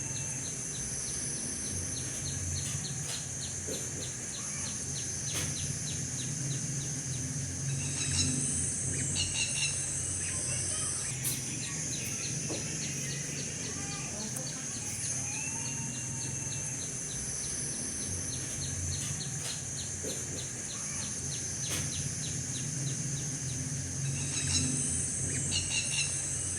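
Outdoor bird and insect ambience: a steady high insect drone, a rapid ticking call repeating about four times a second, and scattered bird chirps, over a low hum.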